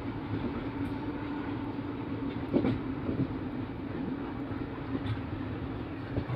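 Train running along the track: a steady rumble with a low hum, and a sharp knock about two and a half seconds in.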